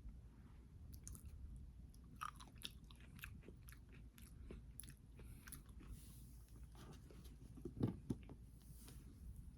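Close-up eating sounds: a person biting and chewing food, with many small crisp clicks in the first half and two louder, lower thumps about eight seconds in.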